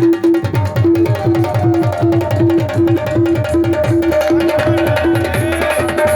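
Qawwali music with tabla drumming. Rapid low drum strokes come in about half a second in, under a short melodic note repeated about twice a second.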